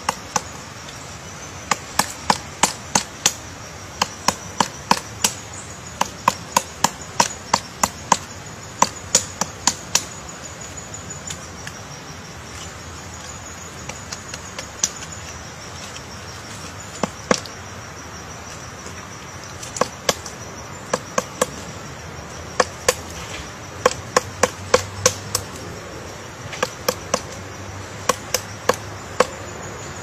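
Pileated woodpecker excavating a hole in a tree trunk: sharp, irregular blows of its bill chiselling into the wood, coming in quick clusters with short pauses. For a few seconds near the middle the blows are fewer and softer.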